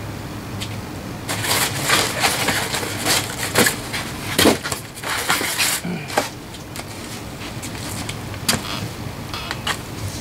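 Rigid foam slabs being picked up and shifted, a dense run of scraping, rubbing and knocking over the first half, then a few scattered sharp clicks.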